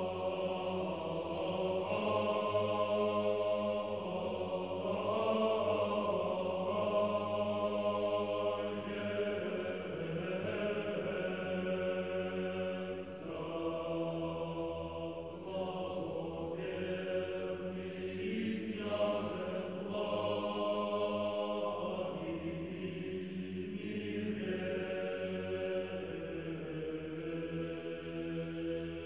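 Slow unaccompanied chanting. The voices hold long notes that shift every few seconds over a steady low drone.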